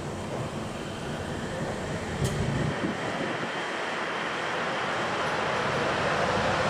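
Nippori-Toneri Liner 330-series rubber-tyred AGT train approaching on its elevated guideway: a steady running noise with a faint whine, growing louder over the second half, and a single sharp click about two seconds in.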